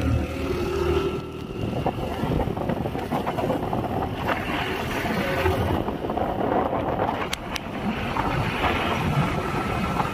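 Wind rushing over the microphone with steady road and engine noise from a moving two-wheeler.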